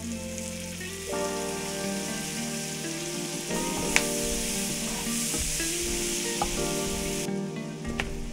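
Butter sizzling and frying in a hot nonstick frying pan, with a wooden spatula stirring chopped onion through it. There is a sharp knock about four seconds in and another near the end as sliced mushrooms drop into the pan.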